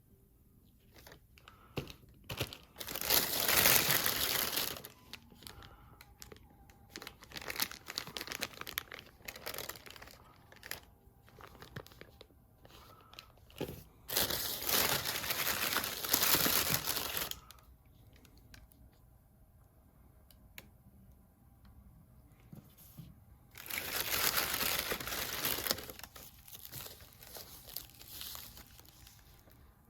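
Packaging being unwrapped by hand: plastic crinkling and rustling in short bursts, with three louder stretches of a few seconds each of ripping or peeling.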